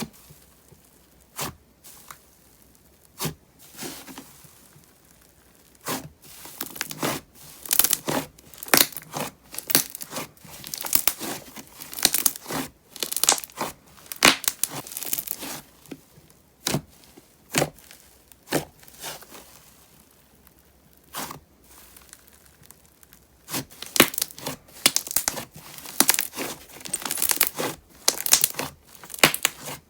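Thick, glossy slime with clay mixed in, being squeezed, stretched and folded by hand, giving off small bubble pops and heavy, crunchy crackling. Single sharp pops come and go, with long stretches of dense crackling in the middle and again near the end.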